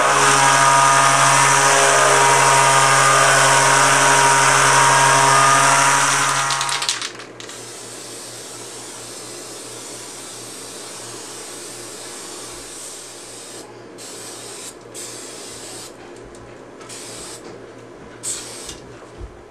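Handheld electric palm sander running steadily on a satellite dish, cutting off about seven seconds in. Later come several short hisses from an aerosol spray-paint can.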